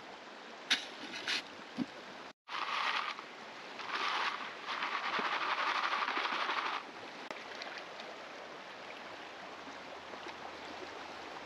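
Steady rush of a flowing creek. After a short break in the sound, gravel and water rattle and slosh in a gold pan in three bursts, the last about two seconds long with a quick, rhythmic shaking.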